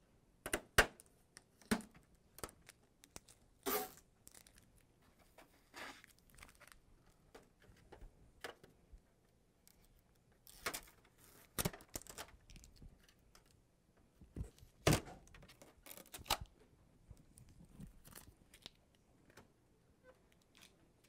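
Blue packing tape being peeled off a copier's plastic panels in a series of short rips, mixed with clicks and knocks of the plastic covers being handled.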